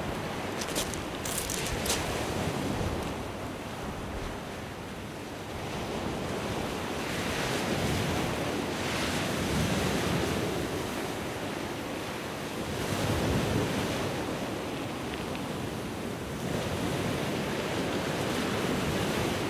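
Rough sea surf breaking on a shingle beach and rocks, swelling and easing every few seconds, with wind buffeting the microphone. A few crunching footsteps on the shingle in the first two seconds.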